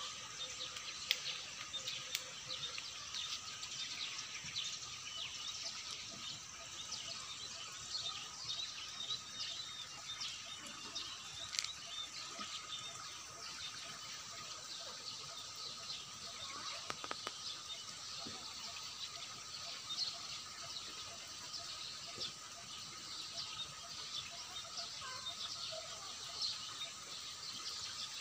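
Outdoor ambience of birds chirping, many short calls scattered throughout, over a steady background hiss.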